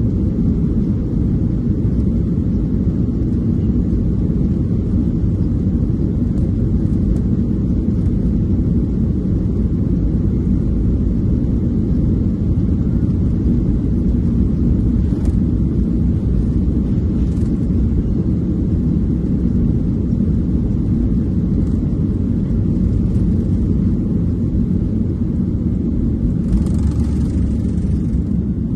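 Boeing 737-800 jet engines heard as a steady low rumble inside the cabin under takeoff or climb power.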